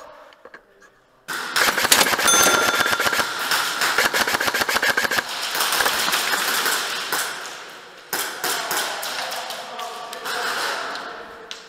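Airsoft guns firing long rapid full-auto strings, a fast clatter of shots starting about a second in. It breaks briefly near the two-thirds mark and then resumes.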